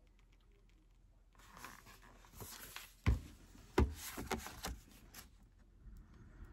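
Pages of a paper book rustling as they are turned, with two soft thumps from the book being handled about three and four seconds in.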